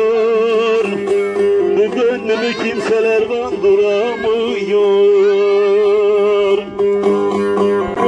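Bağlama (saz) played by plucking, a Turkish folk tune running over steady held drone notes.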